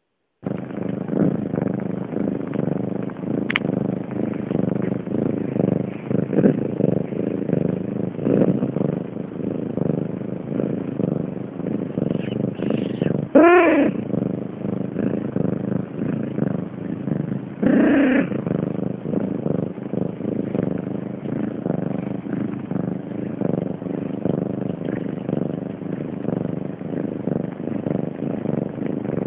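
Close, steady purring of young Siamese kittens, a rough rhythmic rumble, broken by a short high kitten mew about halfway through and a second, lower mew a few seconds later.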